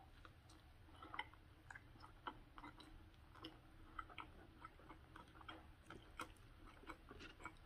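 Faint chewing of chili cheese fries with the mouth closed: soft, irregular wet mouth clicks and smacks, a few each second.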